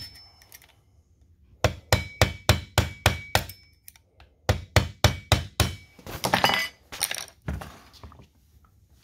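Hammer tapping a Husqvarna 350 chainsaw's clutch to tighten it onto the crankshaft, with the piston held by a rope in the cylinder. There are two quick runs of metallic taps, about four a second, each with a brief ring. A short clatter follows near the end.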